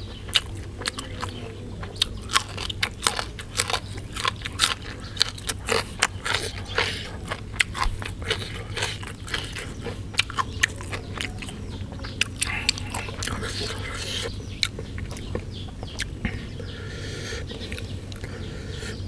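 Close-up chewing and crunching of crisp raw vegetables, sharp crackles coming several a second and thinning out after about fifteen seconds, over a steady low hum.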